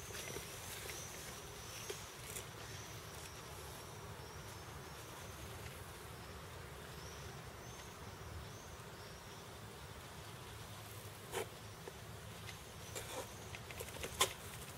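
Quiet outdoor ambience with a thin, high chirping of short repeated notes, first at the start and again about halfway through. Near the end come a few sharp taps of boot heels on stone steps.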